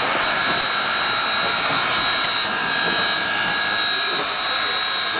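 Canadian National 2-8-2 Mikado steam locomotive hissing steam steadily as it moves slowly, with a thin high tone running through the hiss.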